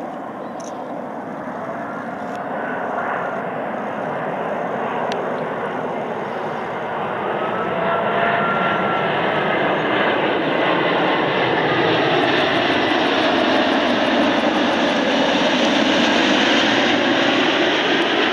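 Airbus A380 on final approach, its four Rolls-Royce Trent 900 turbofans running at approach power in a steady jet roar that grows steadily louder as the airliner comes closer, with faint engine whine tones that bend in pitch as it passes.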